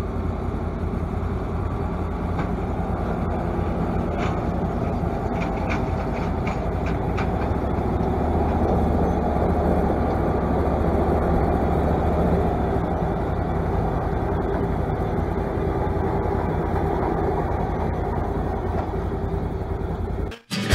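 Tractor pulling a pull-type forage harvester that is picking up and chopping haylage, engine and chopper running steadily as they pass, loudest about halfway through.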